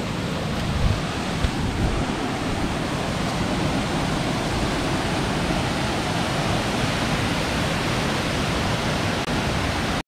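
Waterfall's steady rush of falling water, with a few brief bumps in the first couple of seconds.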